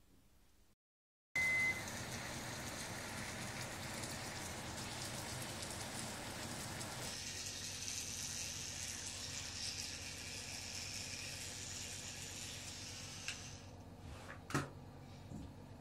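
Bathroom tap running steadily into a sink, starting suddenly after a short high beep. Near the end the water noise drops away, with a couple of clicks and one sharp knock.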